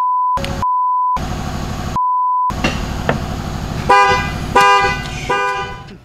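Car horn going off in several short honks, mixed with a steady censor bleep that sounds three times in the first two and a half seconds over a bleeped-out exclamation.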